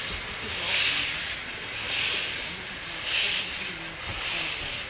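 Steam locomotive working slowly, giving four evenly spaced bursts of steam hiss a little over a second apart.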